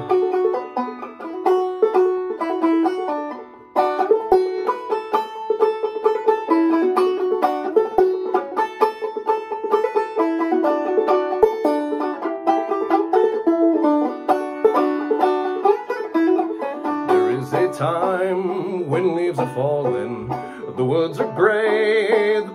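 Gold Tone five-string banjo played clawhammer style in open A tuning (aEAC#E): a busy instrumental break of quick plucked notes and brushed strums. The notes stop briefly just before four seconds in, then pick up again at full strength.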